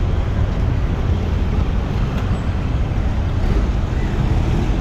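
Steady low rumble of road traffic, loud and unbroken.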